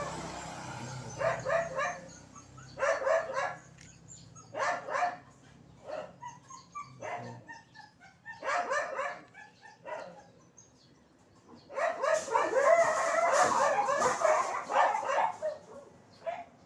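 A dog barking and yipping in short bursts every second or two, with a longer, louder stretch of barking near the end.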